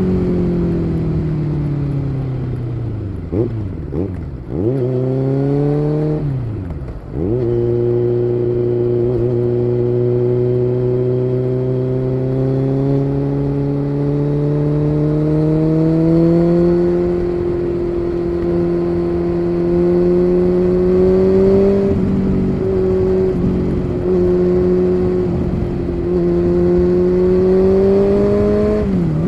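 Kawasaki Z900 inline-four running through an SC Project aftermarket exhaust while riding. The engine note falls as the bike slows over the first few seconds, with two sharp drops and quick rises in pitch around four and seven seconds in, then holds a steady cruising note that rises slowly. A brief dip in pitch comes near the end.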